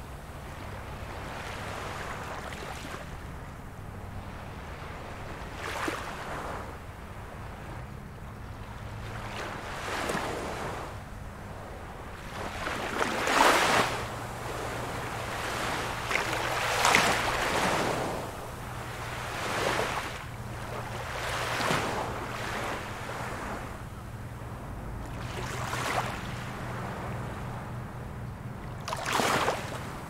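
Small ocean waves breaking and washing up a beach, a rushing swell of surf every few seconds, the loudest around the middle.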